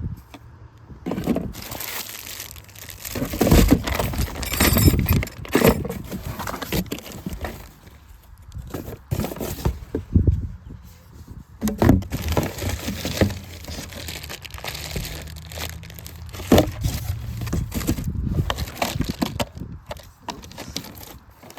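Chainsaw box being unpacked by hand: packaging crinkling and rustling, with irregular knocks and clunks as parts are lifted out.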